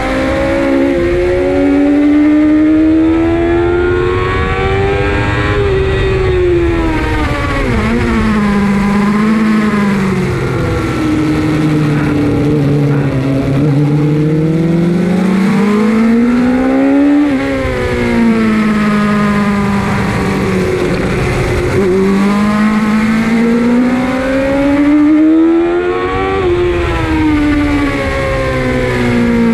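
Suzuki GSX-R 750 SRAD's inline-four engine heard from onboard on track, its note climbing for several seconds and then falling again, over and over, as the bike accelerates and slows through the corners. A steady rush of wind noise lies under the engine.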